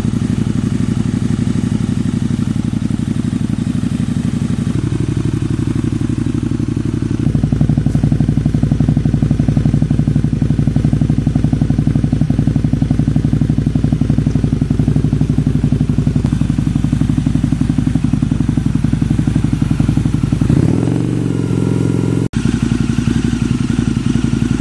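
Harley-Davidson V-Rod Muscle's 1250 cc Revolution V-twin idling through new slashcut stainless slip-on silencers, giving a deep thump. The engine is given a short rev near the end.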